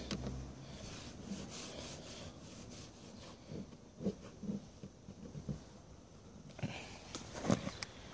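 Fingertips rubbing over a car door panel, feeling for a dent, with a few light taps and clicks of handling.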